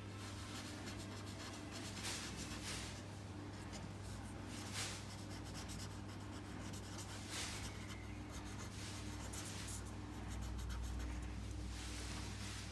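Black felt-tip marker scribbling on paper, a run of short scratchy strokes as a small area is coloured in solid, over a steady low hum.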